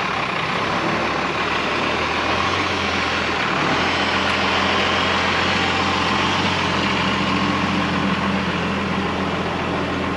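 Cummins 6BT inline-six diesel in an Oshkosh dump truck running steadily as the truck rolls slowly past, a little louder from about four seconds in as it draws alongside.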